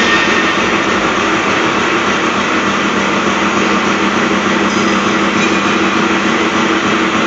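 H-beam end face milling machine running steadily, a constant mechanical drone with a steady hum from its milling head drive.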